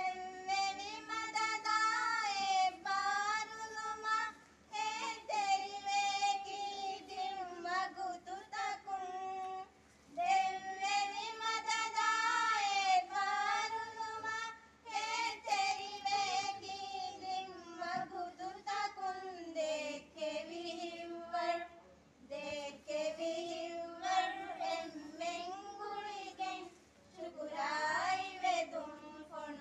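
A group of women singing a song together into a microphone, in phrases of held, gliding notes with short pauses between lines.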